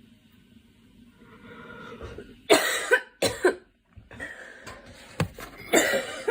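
A girl coughing: a drawn-in breath, then three coughs in quick succession, another breath, and a further hard cough near the end.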